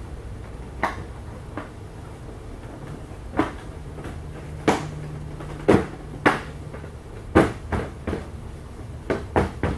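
Irregular sharp clicks and knocks, about ten of them and several close together near the end, as the frame and fittings of a TRAK folding kayak are handled and fitted during assembly.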